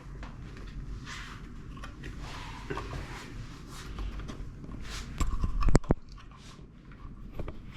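A wall light switch being pulled out of its electrical box: scraping and rustling of the switch and its wires against the box. A couple of sharp clicks come a little over five seconds in.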